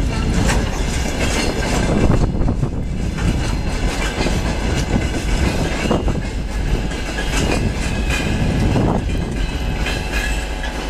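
Open freight wagons of a freight train rolling past: a steady rumble of wheels on rail, with repeated clacks as the wheels cross rail joints.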